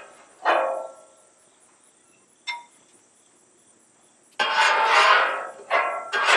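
Metal spatula scraping fried rice across the steel top of a Blackstone griddle: one short sweep about half a second in, then a run of quicker sweeps near the end. A single short metallic clink rings out in the quiet gap between them.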